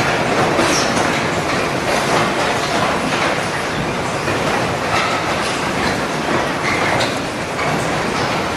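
Industrial machinery running with a loud, steady, dense clatter of rapid ticks and rattles.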